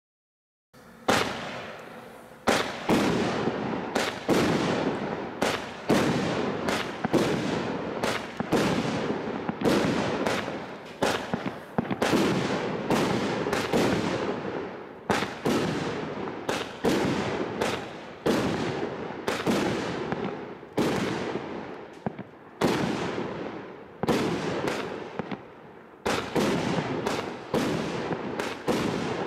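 A Bright Star Thunder Bolt 25-shot firework barrage cake firing shot after shot, about one a second, after starting a moment in. Each shot is a sharp report that trails off before the next.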